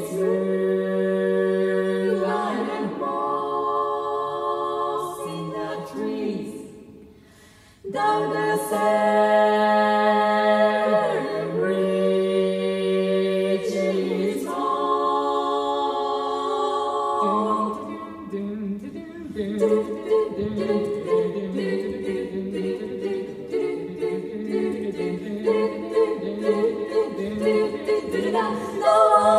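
Female barbershop quartet singing a cappella in four-part close harmony, holding long chords. After a short break about seven seconds in, the singing resumes, turning to quicker, choppier rhythmic notes in the second half.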